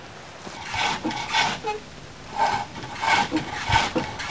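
Freshly felled green wood being turned on a spring-pole lathe: a turning chisel cuts the spinning wood in repeated short strokes, roughly two a second, beginning about half a second in.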